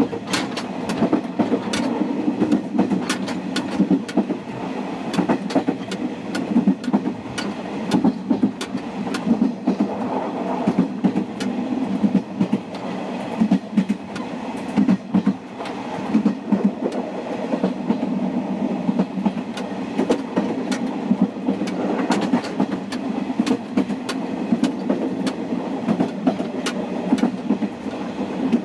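KiHa 47 diesel railcar running, heard at the gangway between cars: a steady low drone from the engine and running gear, broken every second or two by loud, closely spaced rail-joint clacks.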